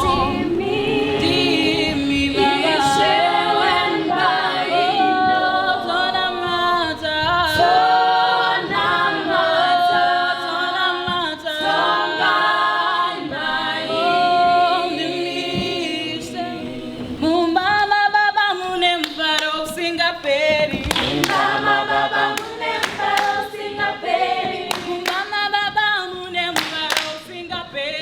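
Choir singing a praise-and-worship song in Shona, unaccompanied, several voices in harmony. Hand claps join in about two-thirds of the way through.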